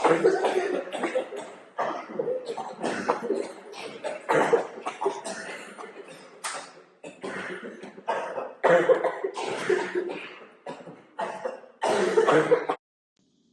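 People coughing over and over, many short coughs in quick succession that stop abruptly near the end: the coughing of a cold or flu-like upper respiratory illness.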